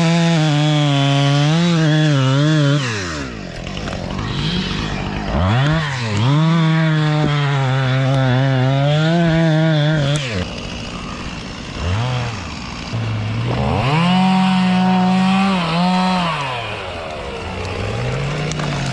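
Chainsaw engine revved to full throttle through long cuts. It drops back to idle three times, at about three seconds, at about ten seconds and near the end, before revving up again.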